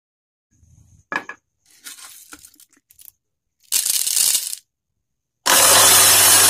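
Roasted coffee beans poured into the glass hopper of an electric coffee grinder, rattling and clinking against the glass, after a few earlier clicks and rattles. Then the loudest sound: a steady rushing noise with a low hum for over a second, cutting off sharply, which fits the grinder's motor running.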